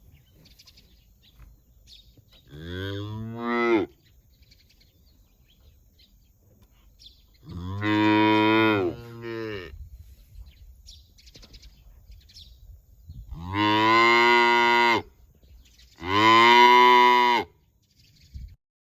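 Dairy cows mooing: four long calls a few seconds apart, each rising in pitch at the start, the last two close together.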